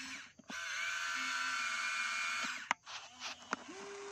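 Electric motors of a Huina remote-control excavator whining as the arm digs and lifts a bucketful of dirt. The whine stops briefly twice, with a few sharp clicks about two and a half seconds in, and a lower whine that wavers in pitch starts near the end.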